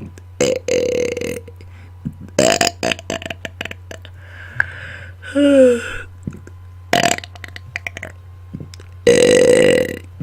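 Deliberate belching into a close microphone: about five loud burps a second or two apart, some long and drawn out, one just before the middle falling in pitch. A steady low electrical hum runs underneath.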